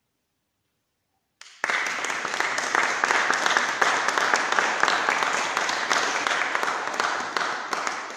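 Audience applauding in a hall. After a second and a half of silence the clapping starts suddenly, holds steady, and fades out near the end.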